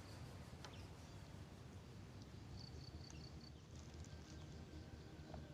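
Quiet outdoor ambience: an insect chirping in short runs of rapid high-pitched pulses that come and go, over a low steady rumble, with a few faint clicks.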